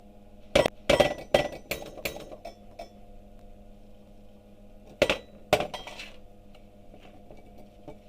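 Hard metal objects clinking and clanking with short ringing: a quick run of five or so strikes in the first two seconds, then two more about five seconds in.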